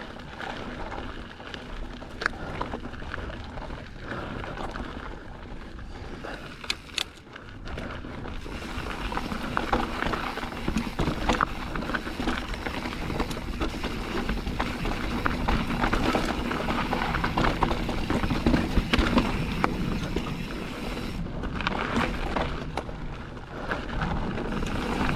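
Mountain bike riding a dry, dusty dirt trail: tyres rolling over loose dirt and the bike rattling and knocking over bumps, getting louder and busier from about eight seconds in.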